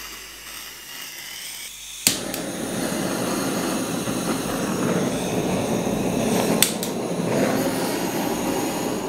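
A handheld butane blowtorch on a gas canister. A faint high hiss, then a sharp click about two seconds in as the torch lights. The flame then burns steadily with a loud rushing noise, and there is another click about four seconds later.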